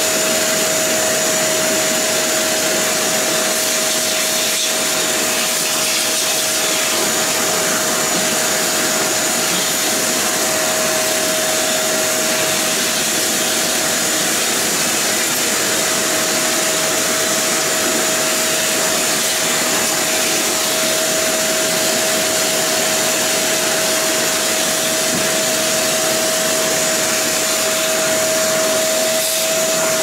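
Parkside PNTC 1500 C4 wet and dry vacuum cleaner running steadily at full power: a constant rush of air through the hose with a steady whine from the motor, as the nozzle sucks up debris from wooden decking.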